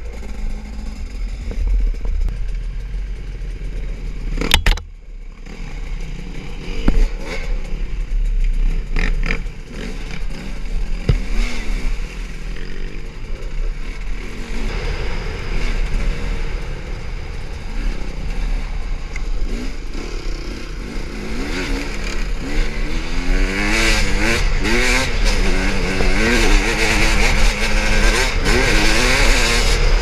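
Dirt bike engine on a helmet-mounted camera, revving up and down constantly as the rider works the throttle over a rough trail, with rattling from the bike. About four and a half seconds in there is a sharp loud knock, and in the last several seconds the engine and rush of air grow louder.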